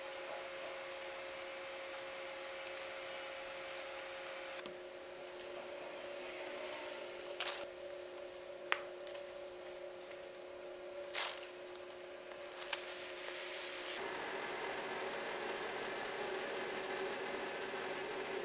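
Steady kitchen hum with two held tones, broken by a handful of sharp clicks and taps while batter is piped onto a tray. About fourteen seconds in, the hum gives way to a steadier, broader fan-like rush.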